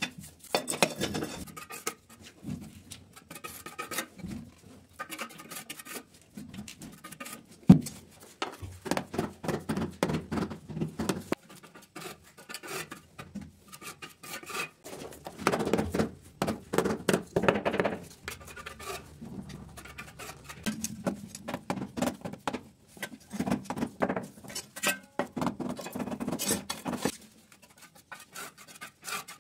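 Steel trowel scraping and clinking as cement tile adhesive is spread on the wall and along the edges of ceramic skirting tiles: irregular scrapes and taps, with one sharp knock about eight seconds in.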